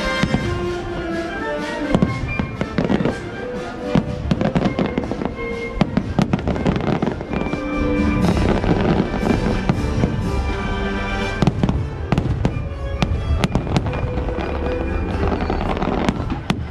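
Aerial fireworks shells bursting in many sharp bangs over loud patriotic show music played along with the display.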